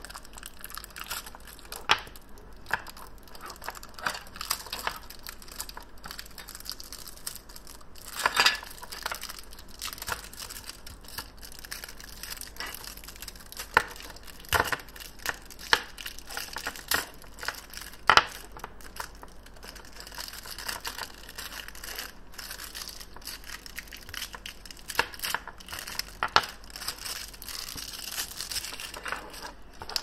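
Plastic wrapping on a pack of AA batteries crinkling and tearing as it is opened, with scattered sharp clicks of the metal-jacketed batteries knocking together and on the tabletop.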